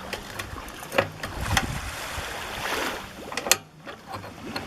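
A few sharp clicks and knocks from the trash pump's housing and clamps being handled during reassembly: one about a second in, another half a second later and the loudest about three and a half seconds in, over a steady rushing background noise.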